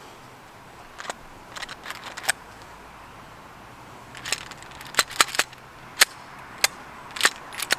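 9mm Glock 17 pistol firing a string of sharp, unevenly spaced shots, a few at first and then a quicker run in the second half. The pistol is suffering repeated failures to extract with cheap Korean-made extended magazines.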